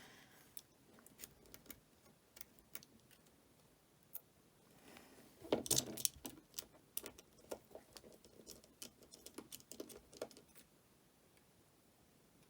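Faint, scattered clicks and taps of small metal repair tools and tiny screws while the screws holding down an iPhone 8's front camera plate are taken out. A denser, louder run of taps comes about five and a half seconds in.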